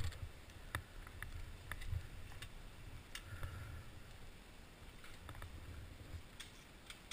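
Giant Faith 2 downhill mountain bike rolling slowly over a rocky trail and coming to a stop: scattered light clicks and rattles at uneven intervals over a faint low rumble.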